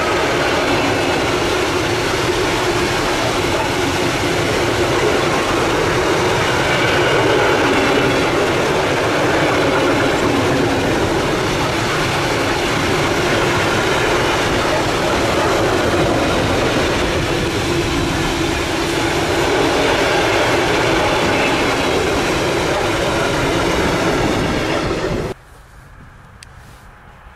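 Freight train passing close by: a steady loud rush of wheels on rail with clickety-clack and faint squealing tones, which cuts off suddenly near the end.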